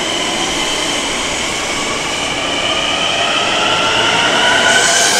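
Long Island Rail Road M-9 electric multiple-unit train pulling away, its traction motors giving a slowly rising whine over the rumble of the cars as it gathers speed. A short hiss cuts in near the end.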